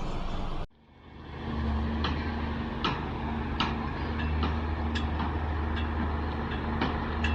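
Construction-site machinery: a heavy diesel engine runs steadily, with sharp metallic knocks roughly every second, some of them ringing briefly. The sound cuts out abruptly about a second in and fades back up.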